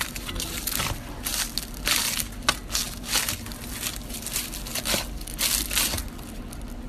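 Crisp, flaky kol böreği (rolled Turkish pastry) being cut with a blade, its baked layers crunching and crackling in a quick, irregular run of bursts.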